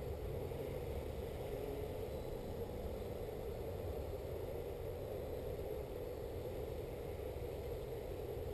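Distant multirotor drone hovering: a steady propeller hum that wavers slightly in pitch, over a low rumble.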